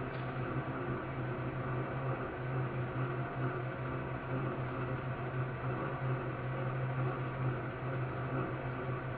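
Tilt-head stand mixer running steadily with its beater turning in a stainless steel bowl: an even motor hum with a low drone.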